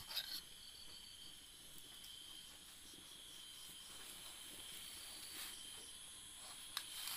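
Steady, high-pitched chirring of crickets, with a few faint clicks of a kitchen knife against a steel plate as a tomato is sliced.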